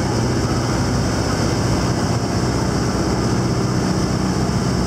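Tractor diesel engine running steadily under load as it tows the passenger trailer of the tractor bus up the hill, heard from on board as a constant low drone with road rumble.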